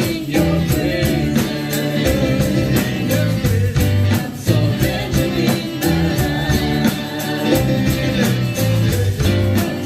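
Gospel worship music: singing over a band with guitar and a steady beat.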